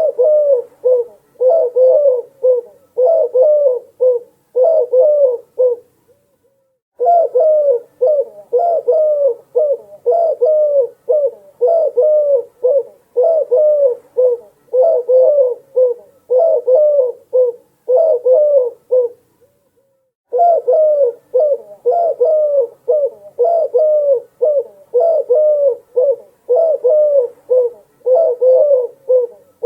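Doves cooing, a close, busy run of short repeated coo phrases with hardly a pause, broken by two silences of about a second, roughly a fifth and two-thirds of the way through.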